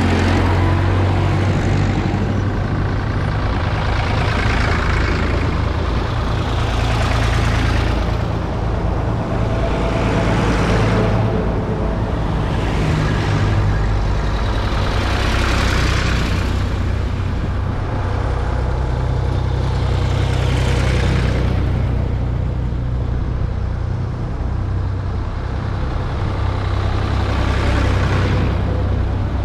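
A column of vintage tractors driving past close to the ground one after another, their engines running under a steady low hum while each passing tractor's engine and tyre noise swells and fades every few seconds.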